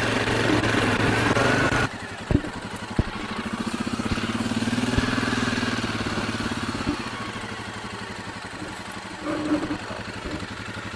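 Suzuki KingQuad 750 ATV's single-cylinder engine running at low speed as the quad rolls along a dirt track, its note swelling and easing a little. The engine drops suddenly in level about two seconds in, and a couple of sharp knocks sound just after.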